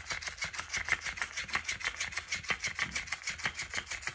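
Electric flopping fish cat toy switched on. Its motor and flapping tail make a rapid, even clicking, about ten clicks a second, that starts suddenly.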